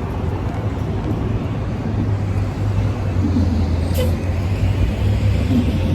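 Steady low drone of a bus's engine and road noise heard from inside the cabin, with a faint click about four seconds in.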